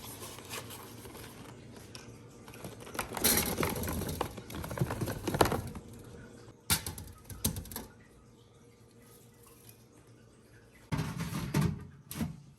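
Fruit and containers being handled and put away: rustling with irregular clicks and knocks, the loudest clatter from about three to six seconds in and again near the end.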